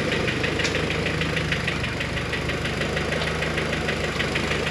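Honda four-cylinder engine with an H22 cylinder head on a G23 block, idling with a rapid, even ticking from the cylinder head. New lost motion actuators have not cured the tick; the owner suspects the valve springs or retainers.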